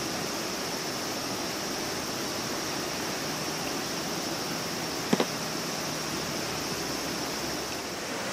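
Steady outdoor ambience: an even rushing noise with a faint high hiss on top. A single sharp click comes about five seconds in.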